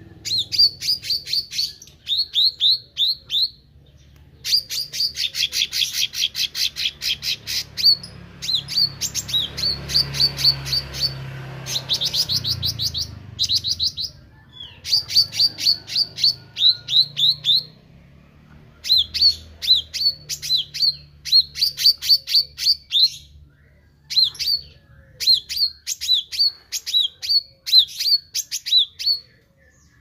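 A caged meranti bird, a small green songbird, singing hard. It gives run after run of rapid high chirps, each run lasting one to three seconds, with short pauses between runs.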